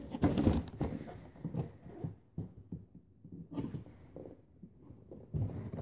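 A large cardboard toy box being handled and opened: irregular scuffing and rustling of cardboard, with a short lull in the middle.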